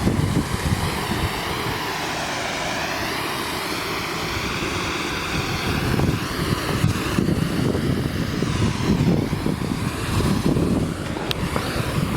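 Steady rush of falling water from the Chute de Madeleine waterfall, with gusts of wind buffeting the microphone in the second half.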